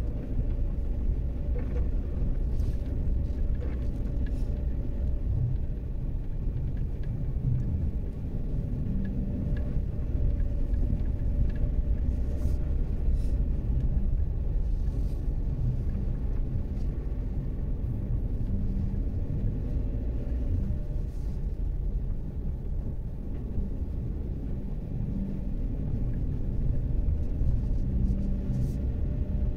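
Haval Jolion crossover driving uphill, heard from inside the cabin: a steady low drone of engine and tyre noise with a faint steady tone above it.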